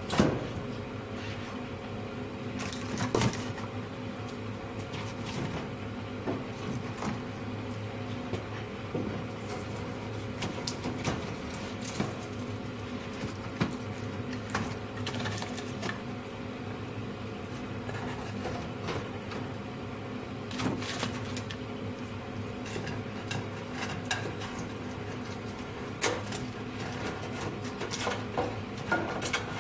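Split logs knocking against each other and the firebox walls as they are stacked into a wood-fired boiler. Scattered wooden knocks, the loudest right at the start, sound over a steady hum, the boiler's draught fan running to hold the firebox under negative pressure.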